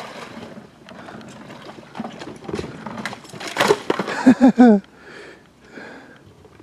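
Wading through knee-deep creek mud in waders: irregular squelching and splashing steps. About four seconds in comes a quick run of three or four short pitched sounds, the loudest part.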